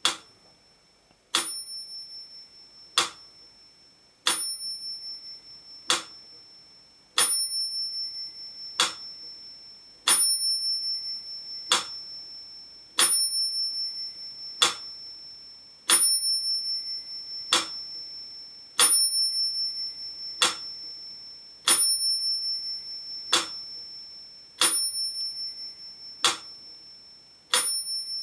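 Black mechanical pyramid metronome ticking at 40 beats per minute, with its bell ringing on every second beat. Each bell stroke rings on briefly after the tick. The ticks alternate slightly short and long gaps.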